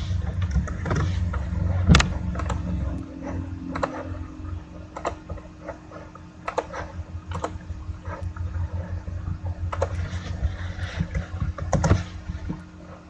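A series of irregular sharp clicks and knocks over a steady low hum. The loudest clicks come about two seconds in and again near the end.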